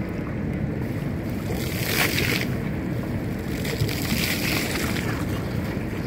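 Rushing, hissing water and mist from a plaza fountain's ground jets, over a low rumble of wind on the microphone; the hiss swells briefly about two seconds in and again around four seconds in.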